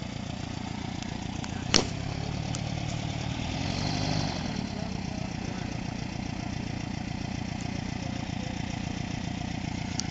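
Diesel engine of a pusher-propeller boat running steadily with an even pulse, swelling briefly about four seconds in. A sharp click sounds about two seconds in.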